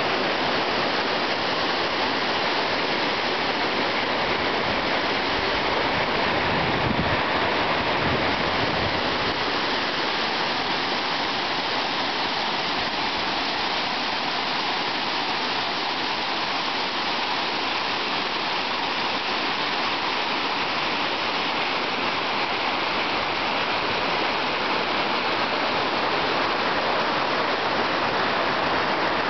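Steady rush of a river's water pouring down a rock waterfall and running fast over a shallow rock bed.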